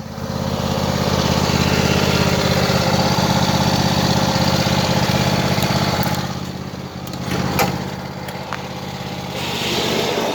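Riding lawn mower engine idling steadily, with a few light clicks about two-thirds of the way in.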